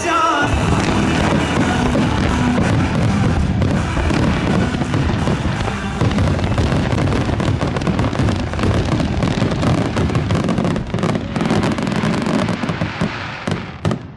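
Fireworks shells bursting in a dense, continuous barrage of overlapping booms and crackles, a finale volley that thins out and stops just before the end, with show music playing underneath.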